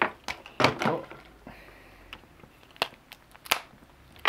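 Sharp plastic clicks and knocks of a small yellow surprise-egg capsule being gripped and pried at by hand, a cluster about a second in and single clicks later. The capsule is pretty tight and will not open by hand.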